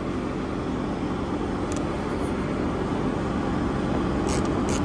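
Steady low mechanical hum of background machinery, with a few faint light clicks about two seconds in and again near the end.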